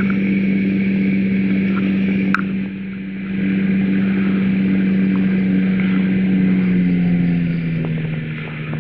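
Engine and propeller of a weight-shift microlight trike droning steadily at power. About seven seconds in, the engine note drops as the throttle is eased back. There is a short click a little over two seconds in.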